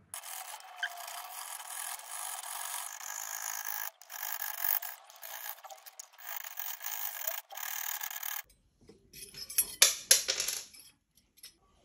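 Jeweler's saw blade sawing through the metal diecast body of a 1:64 toy car, a steady sawing noise with brief breaks. Near the end it changes to louder scraping with sharp clicks.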